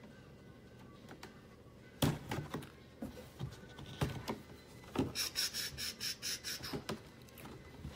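A taped cardboard box being opened by hand: a sharp snap about two seconds in and a few knocks and rustles, then a quick run of crackling strokes, several a second, as the tape and top flaps are pulled open.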